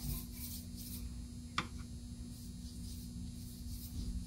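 Quiet room tone with a steady low electrical hum, and one light tick about a second and a half in.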